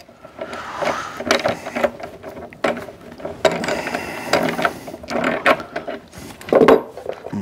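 A hand wrench working the hold-down bolts of a wooden drill press table top, loosening them with repeated ratcheting clicks and metal scrapes, about one stroke a second.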